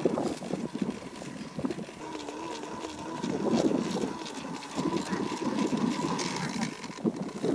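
Dry grass rustling as hands work through it around a rat burrow, with a faint steady whine throughout and a brief wavering call about two seconds in.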